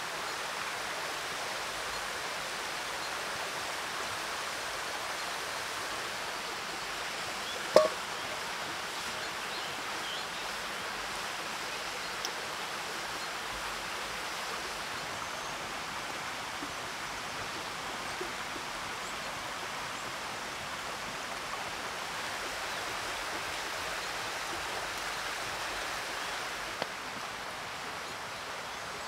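Steady rushing outdoor ambience, a stream-like hiss, with one sharp ringing clink about eight seconds in and a few faint clicks later.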